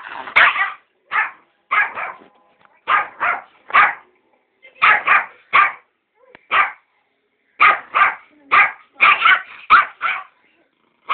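Small Yorkshire terrier barking sharply and aggressively in quick runs of two to four barks with short pauses between, defensive barking as he guards a box of sweets and warns people off.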